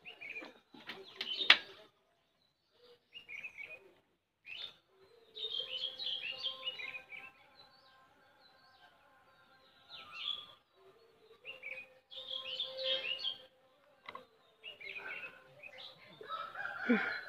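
Small birds chirping in short clusters of quick high notes, with a sharp knock about a second and a half in. A steady hum runs under the chirping through the middle.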